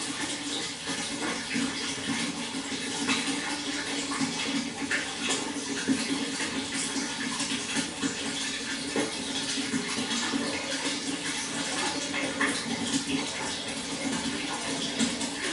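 Flowing water: a steady rush with many small splashes and gurgles.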